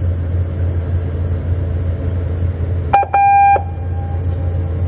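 Steady low hum of a patrol vessel's machinery running at the quay. About three seconds in, a loudspeaker clicks on and gives a short electronic beep lasting about half a second. A faint tone stays on at the same pitch until a second click near the end.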